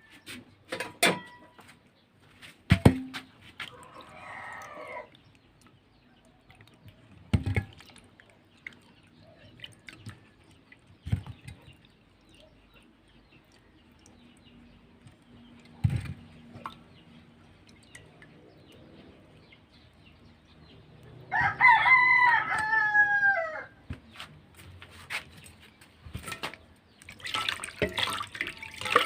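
A rooster crows once, about two-thirds of the way through: a call of about two seconds that falls in pitch at the end. Scattered knocks, clicks and brief scraping sounds occur around it.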